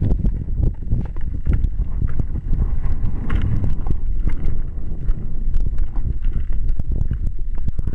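Wind buffeting the microphone as a low, steady rumble, with irregular rustles and knocks from movement through tall grass.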